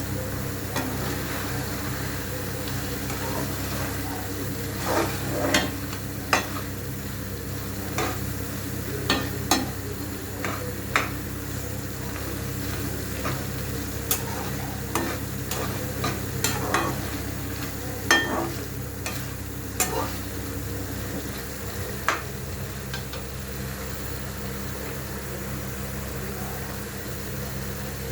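Chicken curry sizzling in a pan while a spoon stirs it, clinking sharply against the pan again and again, mostly in the first two thirds. A steady low hum runs underneath.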